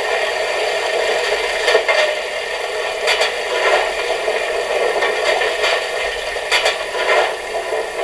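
Sound module of a KISS large-scale model of the HSB 99.23 'Brockenlok' steam locomotive playing steam sounds through its small loudspeaker: a steady hiss with irregular scraping, clattering strokes.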